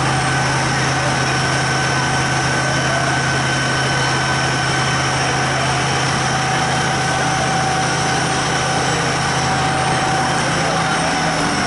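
Large engine idling steadily: a constant low hum with a faint, even whine above it.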